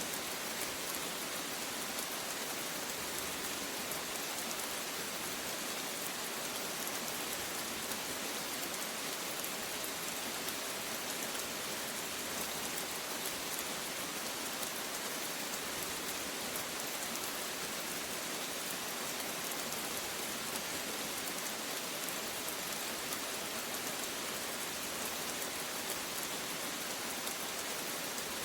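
Steady rainfall pattering on a surface, an even hiss of falling drops with no thunder.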